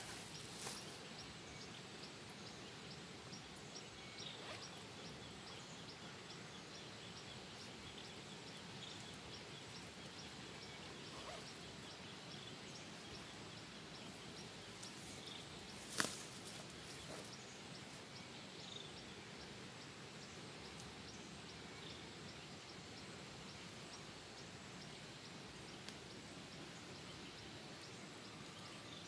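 Faint outdoor forest ambience: a steady hiss with a regular high ticking animal call, about two or three ticks a second, through most of it. A single sharp click about sixteen seconds in.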